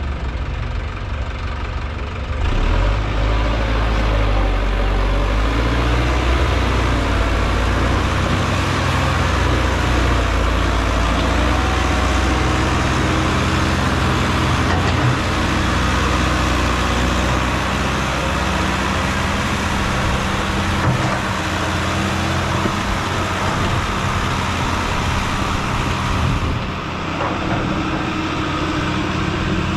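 Sonalika tractor's diesel engine working under load as it pulls a trolley heaped with earth, running harder from about two seconds in and easing slightly near the end.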